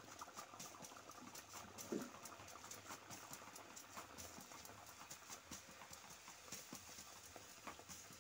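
Bread dough deep-frying in a wok of hot oil: faint steady sizzling with many irregular crackles and pops. One louder knock comes about two seconds in.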